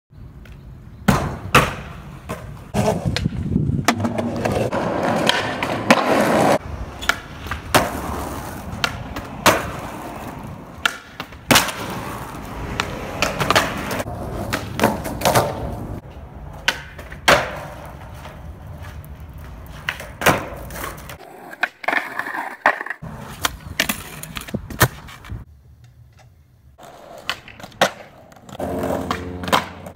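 Skateboard on concrete: wheels rolling, with many sharp clacks of the tail popping and the board landing, and stretches of scraping as the board grinds and slides on ledges.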